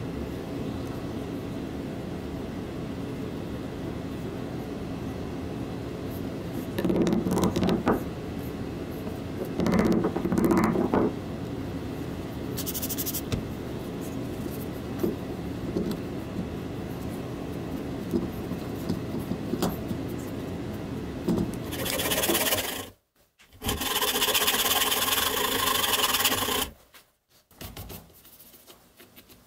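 Workshop sounds of work on a small knife with G10 handle scales: rubbing and scraping over a steady machine hum. There are two louder bursts about a quarter and a third of the way in, and a longer loud stretch of rasping noise near the end that cuts off abruptly.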